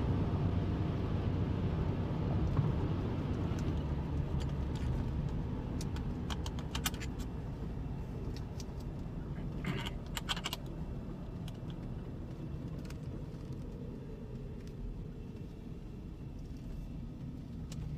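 Road noise from a moving car, heard from inside: a steady low rumble that slowly eases off, with a few scattered clicks and rattles around the middle.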